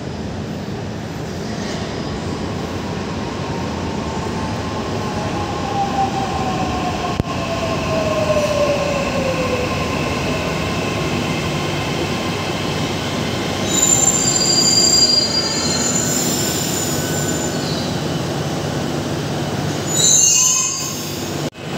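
Mumbai Metro electric train pulling into an elevated station platform: a steady rumble of wheels on the track, with a motor whine falling in pitch as the train slows. High-pitched squeals come past the middle as it brakes toward a stop, and there is a short, loud high-pitched sound near the end.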